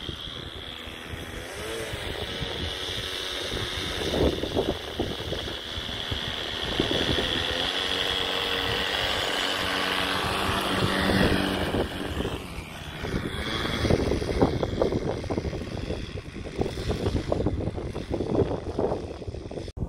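A radio-controlled model airplane's engine running on the ground with its propeller turning. Gusty wind buffets the microphone, strongest in the second half.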